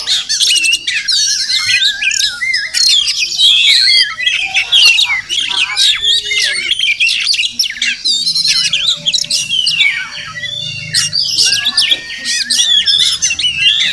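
Oriental magpie-robin singing a continuous, varied song of clear whistles, pitch sweeps and rapid trills.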